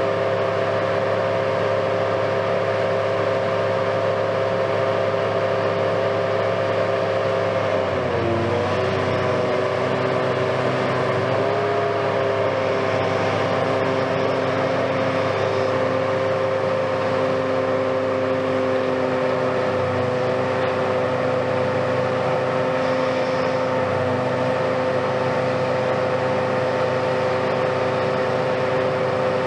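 Hitachi-based Kiesel KMC520 high-reach demolition excavator running, its diesel engine and hydraulics giving a steady whine as the long boom is lowered; the pitch sags briefly about eight seconds in and again a few seconds later, then holds steady.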